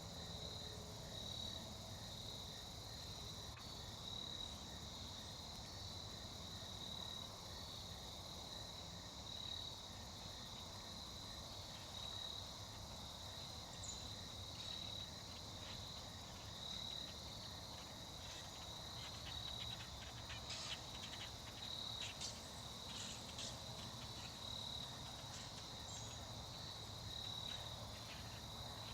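Insects chirring steadily in one high trill that pulses evenly, with a few faint clicks about two-thirds of the way through.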